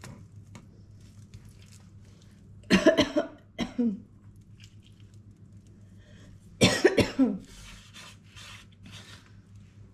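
A person coughing in two short bouts, about three and seven seconds in, each of two or three harsh coughs.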